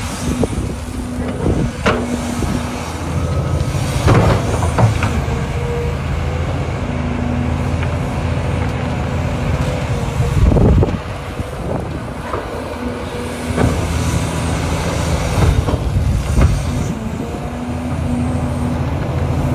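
Caterpillar hydraulic excavator's diesel engine working under load as the bucket digs into a dirt pile, the engine note swelling and easing as the hydraulics work. Several clanks and knocks from the bucket and linkage come through over it.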